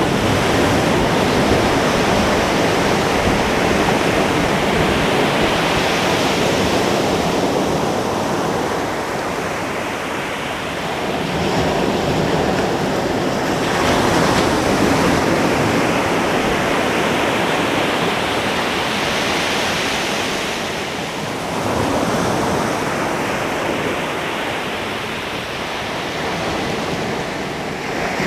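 Ocean surf breaking on a beach: a continuous wash of waves, with a fresh surge of breaking water every several seconds followed by the hiss of it running back.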